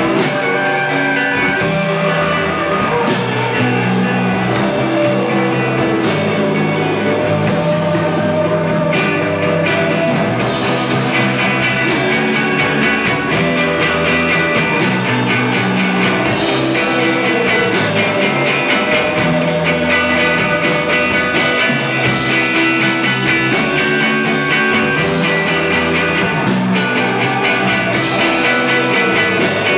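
A live rock band playing: electric guitars with sustained notes over a drum kit, continuous and steady in level.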